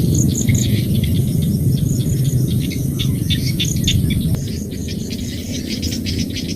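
Rice-field chorus of crickets or grasshoppers chirping rapidly with high, steady insect whines and some bird calls, over a low rumble that eases about four seconds in.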